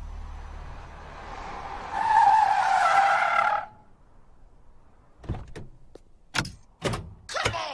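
Car tyres squealing in a skid for about two seconds, rising out of a low hum and hiss, then stopping suddenly. A few sharp clicks and knocks follow near the end.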